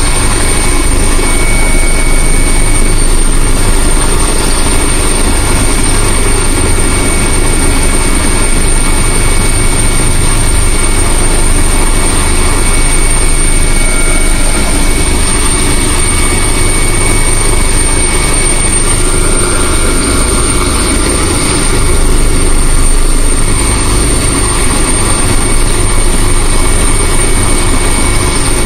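Helicopter heard from inside the cockpit, a loud, steady drone of rotor and engine with a thin high-pitched whine running over it.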